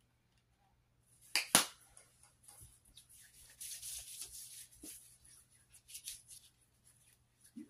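The plastic cap of a body cream tube clicking open with two sharp snaps, then cream worked between the hands: a soft swishing with small clicks and taps.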